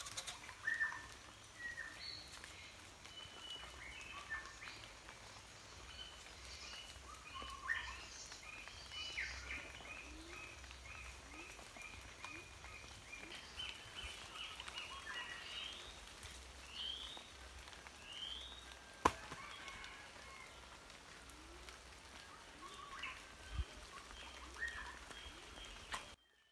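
Several wild birds chirping and calling in short rising notes over a steady low background rumble, with one sharp knock about two-thirds of the way through.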